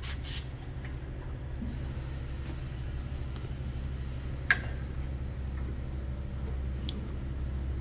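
Steady low hum of workshop equipment, with a sharp click about four and a half seconds in and a lighter one near seven seconds as the measuring-arm probe adapter is handled against the stabilizer bar bolt.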